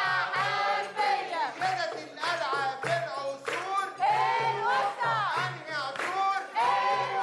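Singing voices over music with a steady pulsing beat.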